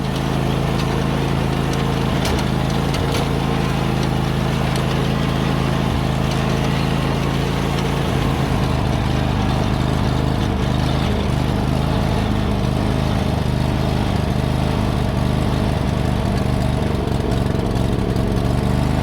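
John Deere GT245 lawn tractor's Kawasaki FH601V V-twin engine running steadily, its note turning more uneven about eight seconds in. The engine runs rich, and the owner thinks it misses a cylinder every once in a while.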